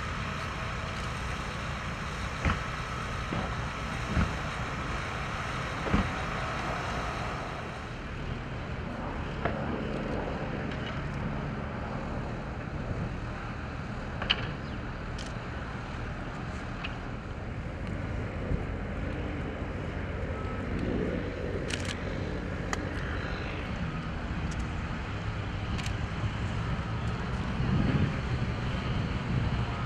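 Outdoor ambience: a steady low rumble of vehicle engines, with a few short sharp knocks scattered through it.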